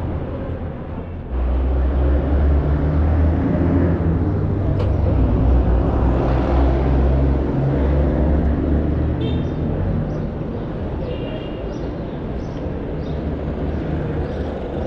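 A vehicle's engine rumbling, coming up suddenly about a second in and easing off after about eight seconds.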